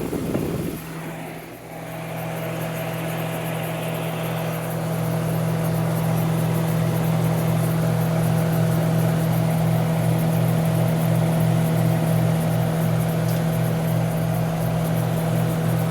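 Montgomery Ward dehumidifier's R-12 refrigeration compressor kicking on about a second in, then running with a steady, slightly pulsing hum that grows louder over the first few seconds. It starts without trouble after months of sitting unused.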